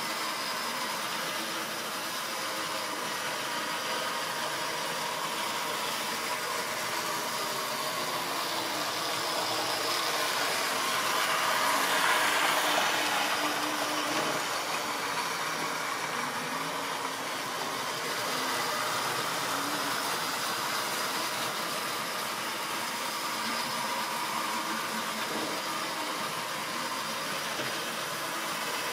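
Model railway trains running on the layout's track: a steady mechanical whirr of small locomotive motors and wheels on rail. It swells to its loudest about twelve seconds in as a train passes close by, then settles back.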